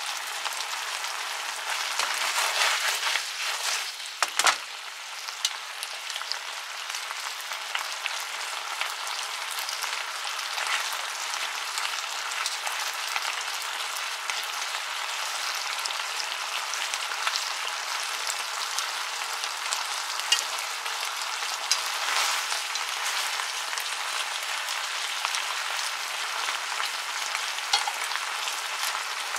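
Chicken wings sizzling and crackling in a frying pan as their sweet soy-and-sake braising liquid reduces. Louder for a couple of seconds near the start, with a sharp knock about four seconds in.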